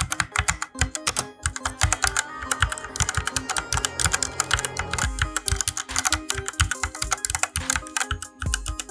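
Rapid, continuous typing on a mechanical keyboard with Outemu red linear switches, in dense key clacks that run together in a quick burst around the middle. Background music plays underneath.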